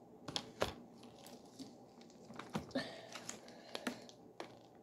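Faint handling noise: a plastic bag of icing crinkling as it is squeezed onto a cookie, with scattered light clicks and taps at irregular intervals.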